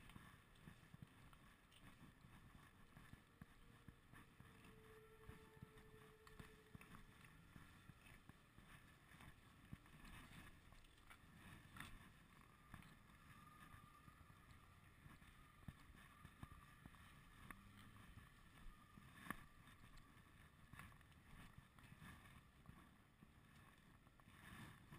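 Near silence: a faint low rumble and hiss, with a few light clicks.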